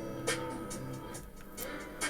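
Background music with sustained notes, with a few light clicks over it.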